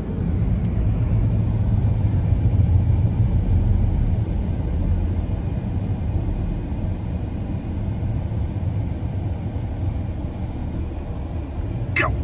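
Steady low road and engine noise from inside a moving car's cabin.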